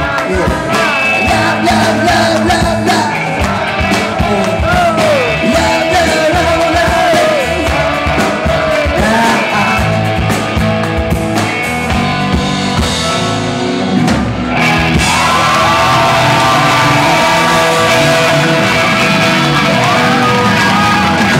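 Live rock band: a male singer with electric guitar and drum kit playing a song, amplified in a large room. About two-thirds through the band swells fuller and louder.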